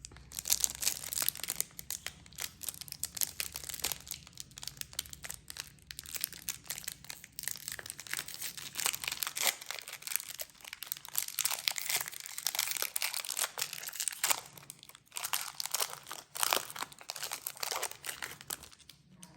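Foil wrapper of a Pokémon trading card booster pack being torn open and crinkled by hand, a dense run of irregular crackles and rustles.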